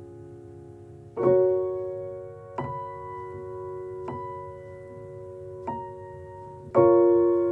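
Slow background piano music: sustained chords and single notes struck about every one and a half seconds, the loudest chords about a second in and near the end.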